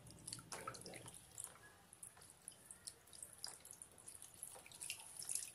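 Hands being rinsed and rubbed in a shallow plastic tub of water: faint small splashes and drips, scattered irregularly.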